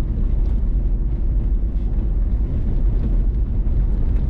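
Car driving on a gravel road: a steady low rumble of tyres on loose gravel and engine, heard from inside the vehicle.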